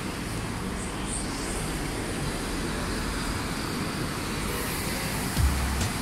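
City street traffic noise: a steady wash of passing vehicles, with a low rumble about five seconds in.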